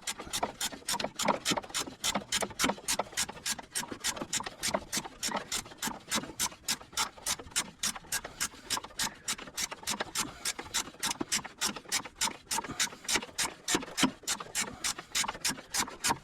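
Hand ratchet wrench clicking steadily, about five clicks a second, as the last strut-mount nut is worked loose.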